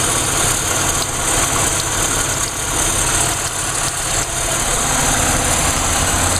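A Pontiac Grand Am GT's 3400 V6 engine idling steadily, heard from the open engine bay with the air conditioning switched on.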